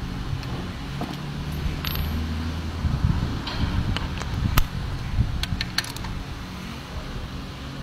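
Metal hand tools clinking and tapping against a BMW N20 engine's timing-chain end, a handful of sharp clinks spread through, over a steady low machine hum.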